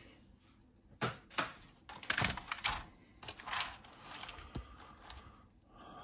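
Light clicks and knocks of the Amstrad CPC464's plastic case and keyboard being handled on the bench, a few irregular taps over several seconds.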